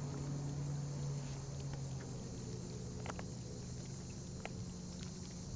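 Low steady hum of a small aluminium boat's motor idling, easing off about two seconds in, with a few faint clicks later.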